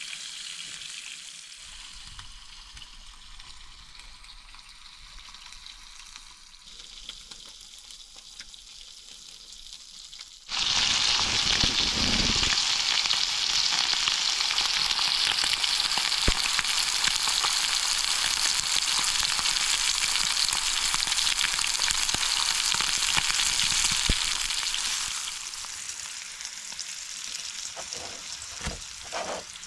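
Food frying in a pan, sizzling steadily. About a third of the way in the sizzle jumps suddenly to a much louder hiss, which eases back down about ten seconds before the end.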